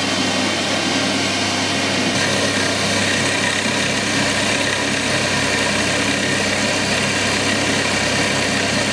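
Metal lathe spindle running at 2000 RPM, the top speed of its two-speed motor, with a 3/16 end mill in the chuck cutting a keyway into a metal bar on a light 0.2 cut. A steady machine whirr mixed with the hiss of the cutter, unchanging throughout.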